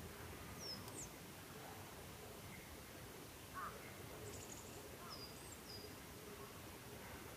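Woodland ambience with wild birds giving a few brief high chirps, and one short, lower and louder call about halfway through, over a faint steady outdoor background.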